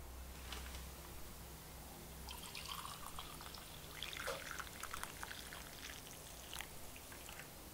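Coffee poured from a glass coffee-maker carafe into a ceramic mug: a trickling pour of a few seconds, starting about two and a half seconds in. A few light knocks come before and after it.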